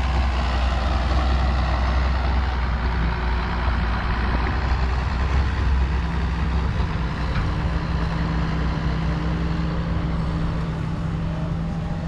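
Heavy diesel farm machinery running steadily: a low engine drone with an even noisy rush above it. A second, slightly higher engine note joins about six seconds in.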